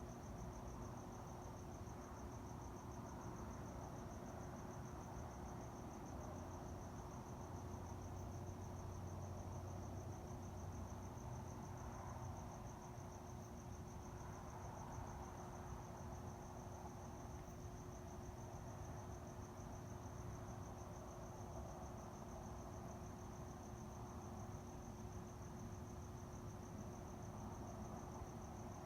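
A cricket trilling steadily and continuously at a high pitch, over a faint low background rumble and a thin steady hum.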